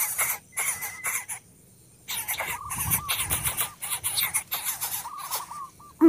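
Greater coucal nestlings calling noisily in the nest: bursts of harsh hissing, then from about two seconds in a run of quick, wavering squeaks.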